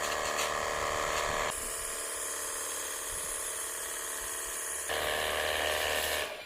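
Small electric motor whirring steadily. Its pitch and tone change abruptly about a second and a half in and again near the five-second mark.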